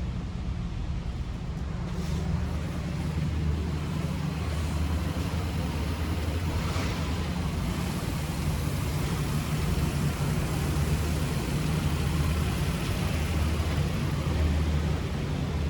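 2009 Suzuki Equator RMZ-4 pickup's engine running steadily, a low hum with a rushing noise over it.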